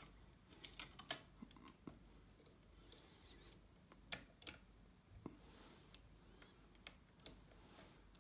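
Small sharp metallic clicks and ticks at irregular intervals, with faint scraping between them: a bicycle-spoke tool and a homemade pick working the levers inside a three-lever lock.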